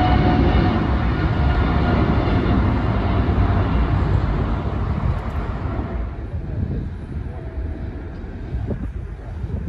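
Jet engines of a departing Boeing 777 climbing away after takeoff: a steady roar with a faint whine on top, fading over several seconds.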